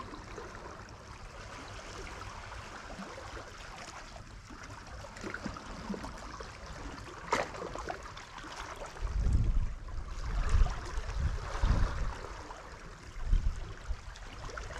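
Sea water washing and lapping against shoreline rocks, a steady watery hiss. From about nine seconds in, irregular low rumbling bursts, the loudest sound here, cut across it.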